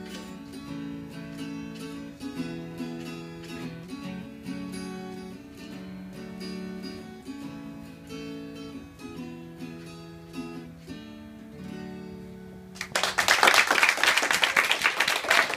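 Acoustic guitar strummed through a chord progression, the final chord ringing. About thirteen seconds in, a class of children breaks into loud applause.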